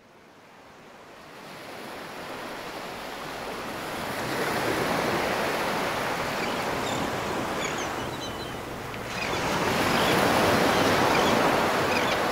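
Ocean surf: waves breaking and washing up a sandy beach. It fades in from silence and swells twice, with a dip between the swells, and faint short high chirps are scattered through it.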